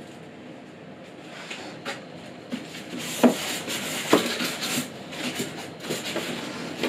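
Cardboard packaging being handled inside a monitor's shipping box: rustling and scraping with several knocks and bumps, loudest a little after three seconds in, after a quieter first couple of seconds.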